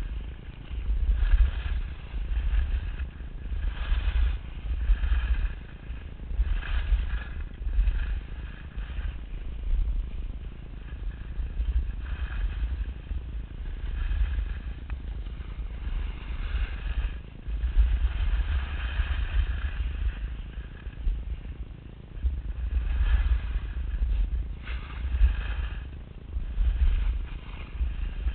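Wind buffeting the microphone of a moving rider, a strong uneven rumble, with repeated swishes every second or two of edges carving and scraping over packed snow.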